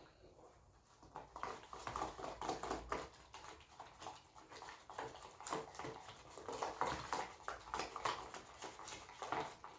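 Wet, sticky squelching and clicking of homemade slime being kneaded and stretched by hand, an irregular run of small crackles.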